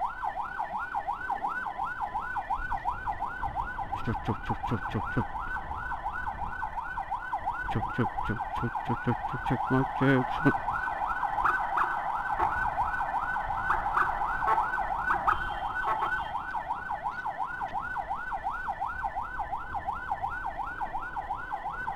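Electronic emergency siren in fast yelp mode, sweeping up and down about four times a second without a break. A few short lower-pitched blasts sound around a third to halfway through.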